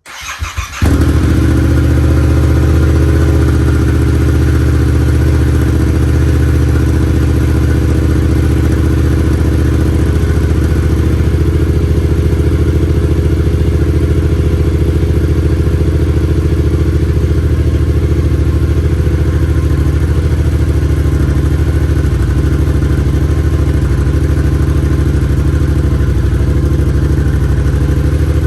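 2022 Yamaha R7's 689 cc parallel-twin engine starting through an aftermarket exhaust with its baffle fitted. It catches within the first second, then idles steadily.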